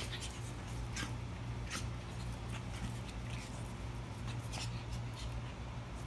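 Two puppies play-wrestling on concrete: a few short scuffling, scratchy sounds about once a second, over a steady low hum.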